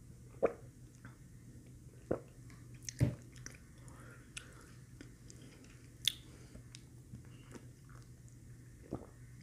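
Close-miked mouth sounds of eating and sipping through a straw: scattered wet clicks and smacks every second or two, over a faint steady low hum.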